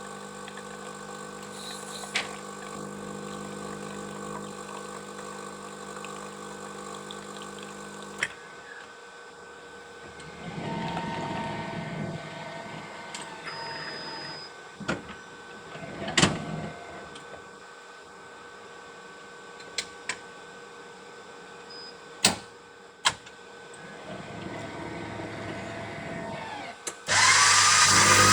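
Coffee machine working through its cycle: a steady electric hum that cuts off suddenly about eight seconds in, then scattered clicks and knocks with a few short whirring runs. About a second before the end, a much louder, noisy whirring starts.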